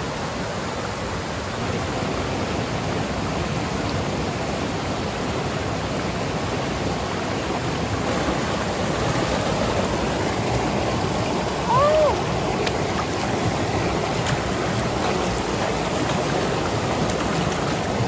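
Mountain stream rushing over rocks in a steady, even wash of water noise. About twelve seconds in, a short rising tone sounds once over it.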